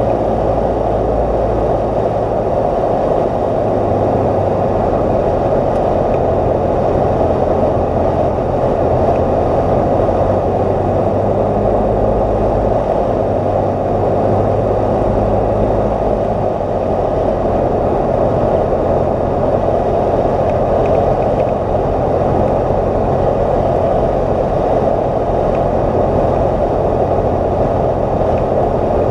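Cessna 172's piston engine and propeller droning steadily, heard from inside the cabin with rushing airflow. The low engine note shifts slightly around the middle.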